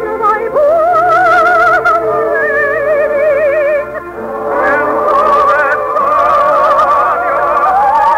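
Orchestral music from a radio operetta: a slow melody of long, wavering notes that moves to a new note a few times, dipping briefly about four seconds in.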